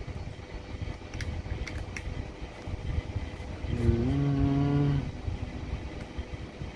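Small plastic servo connectors being pushed onto receiver pins: a few light clicks and handling rustle over a low rumble. About four seconds in comes a held, slightly rising hum of a voice lasting about a second.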